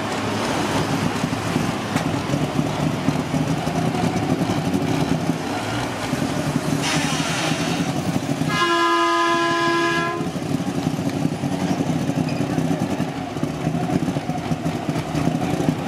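A large vehicle engine running steadily with a rattling note, a short burst of hiss about seven seconds in, then an air horn sounding one steady blast of about a second and a half.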